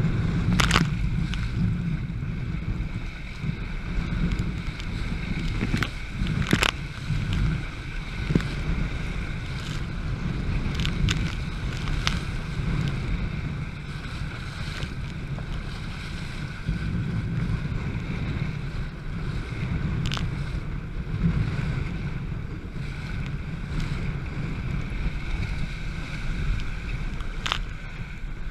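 Laser dinghy planing through chop: wind buffeting the microphone over the rush of water and spray along the hull, with a handful of sharp slaps as the hull hits waves.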